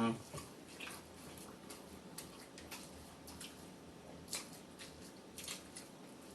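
Faint chewing and mouth sounds of people eating fried chicken: scattered soft wet clicks and smacks, a few to each second or two.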